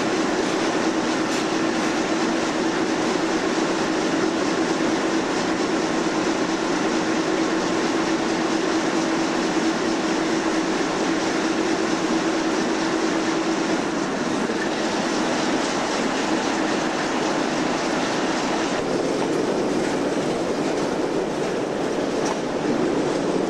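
Diesel locomotive running as the train rolls along the track, heard from the locomotive's outside walkway: a steady engine hum over the noise of wheels on rail. The hum drops back a little over halfway through.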